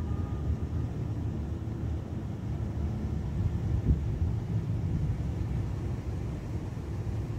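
Steady low outdoor rumble of wind on a phone's microphone, with a light bump about four seconds in.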